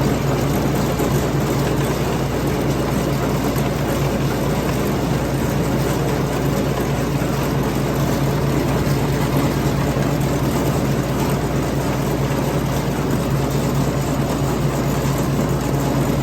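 Ford 6600 tractor's diesel engine running steadily, a loud, even drone that does not change.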